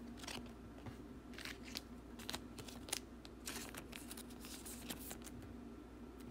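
Trading cards handled by hand: faint, scattered crisp slides and clicks of card stock as the cards are flipped through and set down.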